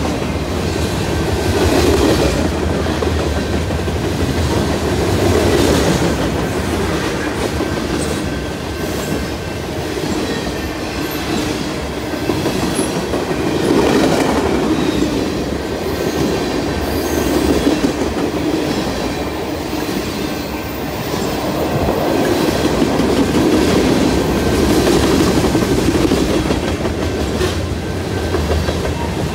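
Freight cars of a CN freight train rolling past on jointed track: steel wheels on rail with a clickety-clack, the loudness swelling and easing every few seconds as each car goes by.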